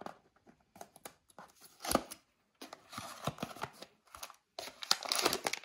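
Thin cardboard box being torn open by hand: scattered sharp paper clicks, then rustling and ripping that grows louder in the last second or so.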